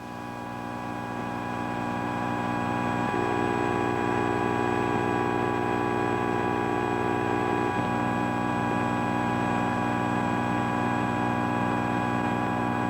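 Helicopter engine and rotor droning steadily, a constant many-toned hum that swells over the first couple of seconds and then holds level.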